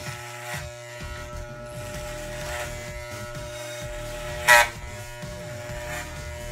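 Electric hair clippers with a number 3 guard buzzing steadily. About four and a half seconds in there is one short, sharp, louder buzz.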